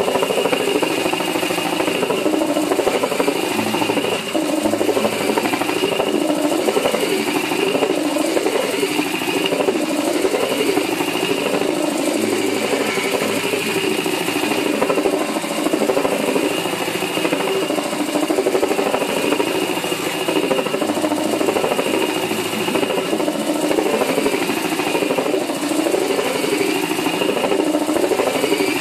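Cordless drill spinning a homemade drum sander, a rolling pin wrapped in 80-grit sandpaper, while it sands across a wooden board. The drill motor and sanding make a steady drone whose pitch rises and falls in a slow repeating cycle, and it stops suddenly at the end.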